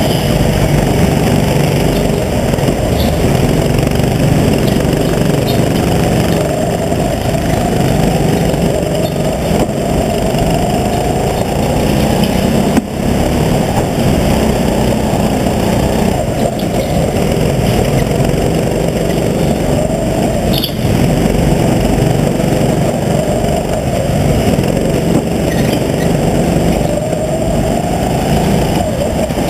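Go-kart engine running hard, heard from on board the kart, its pitch climbing several times as it accelerates out of the corners.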